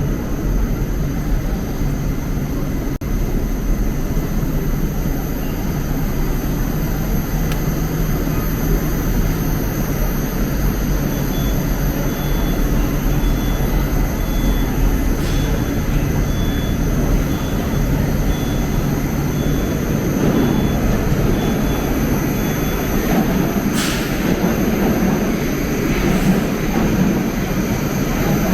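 Moscow Metro train running with a steady, loud rumble.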